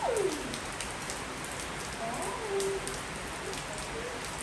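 Steady rain on a wet tiled rooftop terrace: an even hiss with scattered drop ticks. Over it, two short pitched sounds stand out: one sliding down in pitch right at the start, the loudest moment, and one rising then falling about two seconds in.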